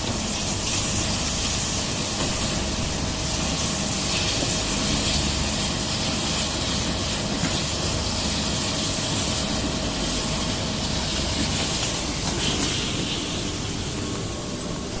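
Oblique grinder for plywood face panels running: a steady hissing grind with a faint steady hum underneath.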